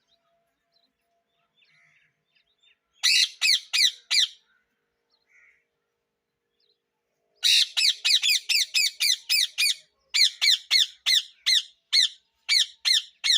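Parrots squawking: a quick run of about five harsh, downward-sweeping screeches a few seconds in, then from about halfway a long rapid string of the same screeches, about three a second.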